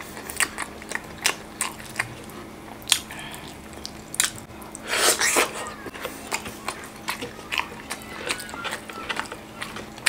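Close-miked eating: wet chewing and lip smacks, many short sharp clicks, as a man eats chicken in thick tomato-chilli sauce with rice by hand. About five seconds in there is a longer, louder wet bite into a piece of the chicken. A faint steady hum runs underneath.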